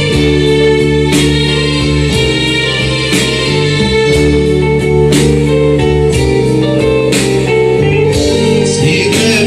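Live band playing an instrumental stretch of Assyrian music: sustained keyboard and string-like melody lines over electronic drums, with a strong beat about once a second.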